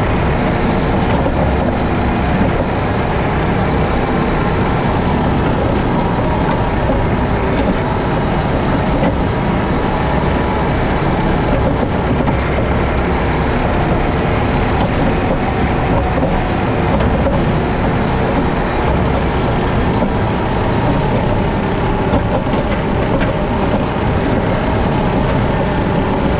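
JCB teleskid skid steer's diesel engine running steadily, driving a 7-foot Jenkins bush hog rotary mower through grass.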